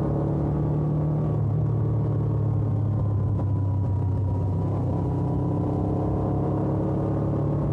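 Suzuki GS500F's air-cooled parallel-twin engine running through its stock exhaust at fairly steady revs, pitch drifting only slightly, as the motorcycle is ridden.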